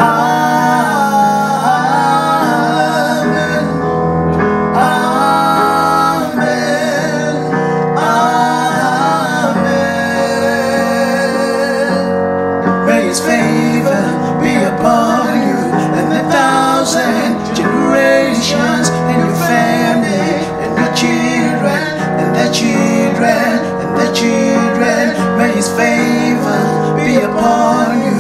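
Worship song played on an electronic keyboard, with a man singing wordless melodic runs over sustained chords; from about halfway, sharp percussion hits join in.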